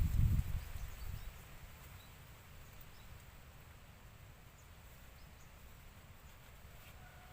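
Faint outdoor background with a few short, high chirps scattered through it. A low rumble is heard for about the first second.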